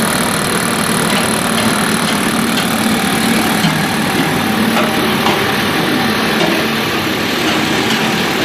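Pet food extrusion production line running: a loud, steady machine din with a low hum and a thin high whine.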